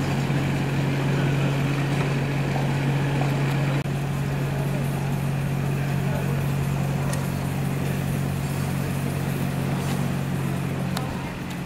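An engine running steadily, a constant low hum with a noisy rumble over it that barely changes.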